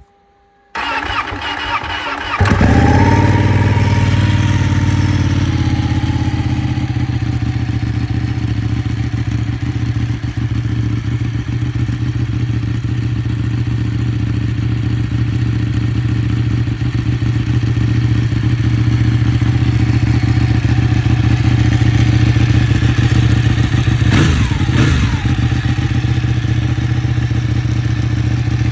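Ducati Panigale 1199 S's 1198 cc Superquadro L-twin engine on its stock exhaust, cranked on the starter and catching about two and a half seconds in. It runs at a raised idle, settles within a few seconds into a steady idle, and rises and falls once in pitch about 24 seconds in.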